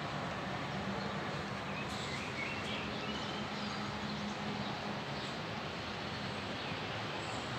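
Steady outdoor background noise with a low hum, and birds chirping briefly about two to three seconds in.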